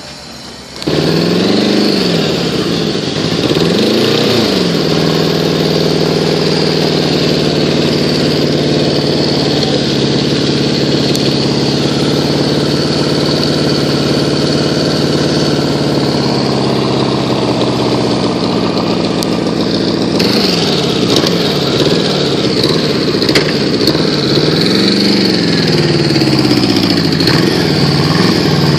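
Harley-Davidson FLHT V-twin engine started about a second in and blipped a few times, then idling steadily. It is revved up and down again over the last several seconds.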